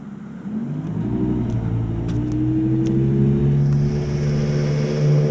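Straight-piped V10 of a BMW M6 (E63) driving up at low speed. A short rev rises and falls about a second in, then the exhaust settles into a steady drone that grows louder as the car nears.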